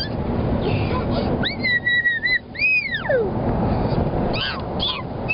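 A child making high-pitched squeaking noises: one held squeak about a second and a half in, then one that rises and slides far down, then a few short squeaks near the end. Steady road noise runs underneath, heard inside a moving car.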